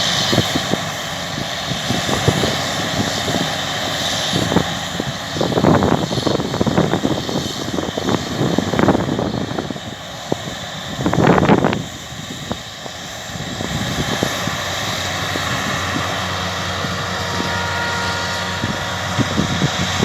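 Steady drone of a combine harvester working a field, engine and threshing running continuously, with louder bursts of noise about six and eleven seconds in.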